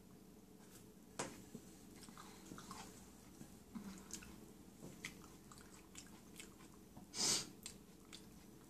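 Faint mouth sounds of eating broth noodle soup: swallowing and chewing with small wet clicks, plus a sharp click about a second in and a short breathy burst near the end.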